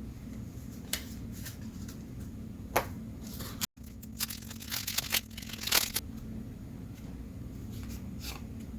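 Paper trading cards being handled and flipped through: scattered short swishes and flicks of card against card, busiest about five to six seconds in, over a steady low hum. The sound cuts out completely for an instant just before four seconds in.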